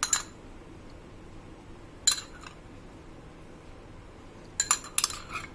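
Metal spoon clinking against a glass bowl and a ceramic plate as whisked curd is spooned out and spread: one clink at the start, another about two seconds in, and a quick run of clinks near the end.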